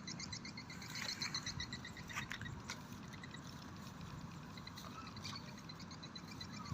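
Rapid trains of short high chirps from calling animals, about five a second, repeating over a steady low background noise, with a few sharp clicks about two to three seconds in.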